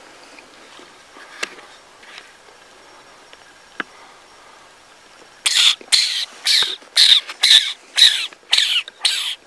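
An animal calling outdoors: a loud series of about ten sharp, harsh calls, roughly two a second, starting a little past halfway.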